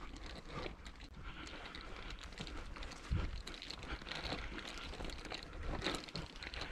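Footsteps on dry farm ground with rustling of clothing and gear against a body-worn camera, with a heavier thump about three seconds in.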